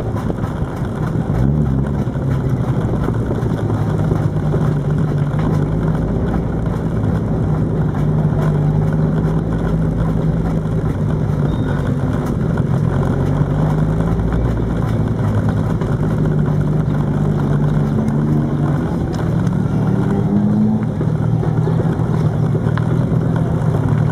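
Race car engine running at low revs, with a few brief rises in revs, heard at the open driver's window.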